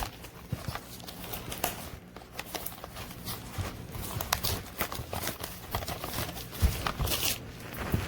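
Handling noise: irregular clicks and taps with a brief rustling crinkle about seven seconds in.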